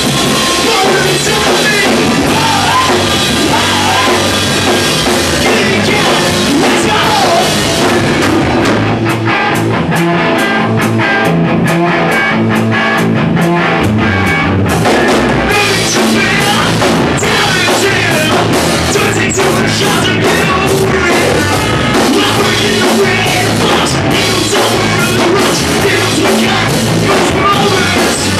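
Post-hardcore rock band playing live and loud: electric guitar, bass guitar and a drum kit, with a singer at the microphone. In the middle, the drums hit a steady, evenly spaced beat.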